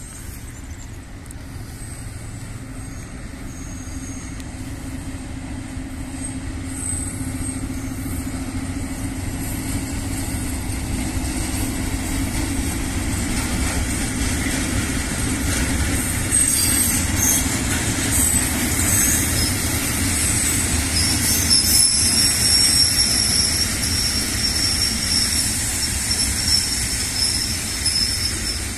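SM42 diesel locomotive running with a steady engine drone as it hauls a train of hopper wagons past, growing steadily louder. From about halfway the wagons roll by with high-pitched wheel squeals.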